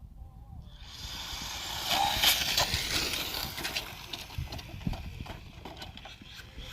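A remote control car running past on the road, its tyre and drivetrain noise full of small rattling clicks. It rises quickly about a second in, is loudest around two seconds in, then fades away.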